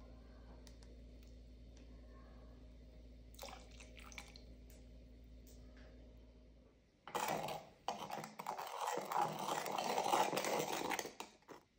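A few faint clicks, then from about seven seconds in a spoon stirring and scraping briskly in a measuring jug of foaming baking soda, vinegar and alcohol mixture, stopping just before the end.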